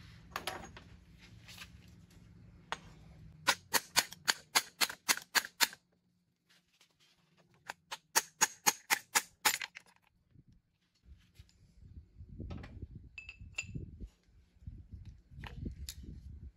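Quick hammer taps on metal, two runs of about ten blows each at about five a second, knocking the shaft out of a John Deere radial-piston hydraulic pump housing. Softer scuffing and knocking of metal parts follows as the shaft and its tapered roller bearing are worked free.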